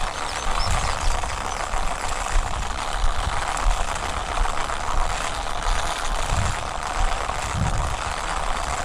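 Hand-cranked shoulder-bag seed broadcaster being turned at a steady pace, its gears and spinner whirring and rattling as they throw sunflower seed. A few low thumps come and go underneath.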